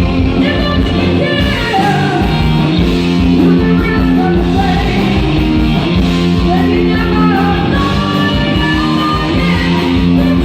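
Rock band playing with a vocalist singing over electric guitar and a full low end, loud and continuous.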